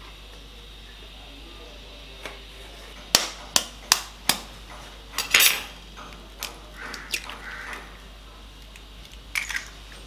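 Kitchen clinks of a utensil and small bowls against a glass baking dish: four quick sharp taps about three seconds in, a short scraping rustle, then softer clinks and a couple more taps near the end.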